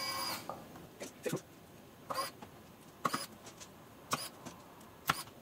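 Small screwdriver turning in the screws that fix the Wanderer ETA onto the OAG: about six short squeaky clicks, roughly one a second.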